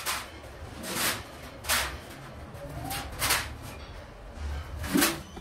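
Footsteps scuffing on a concrete floor, irregular, about one a second, over a low room rumble.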